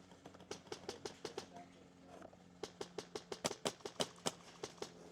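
Sharp cracks of airsoft guns firing single shots in quick, irregular succession. A few come early, then a denser, louder run in the second half.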